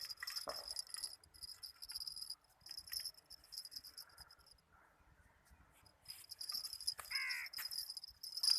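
Insects chirring in a high, pulsing chorus that breaks off for a second or so midway, with one harsh bird call, like a crow's caw, about seven seconds in.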